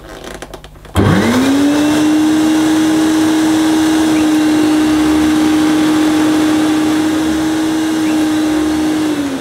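Hoover Celebrity QS canister vacuum cleaner switched on at its foot switch. A few clicks, then about a second in the motor spins up fast to a steady, loud running hum. Near the end its pitch starts to fall as the motor winds down. The cleaner is on its floor setting, so the suction motor runs without the power nozzle.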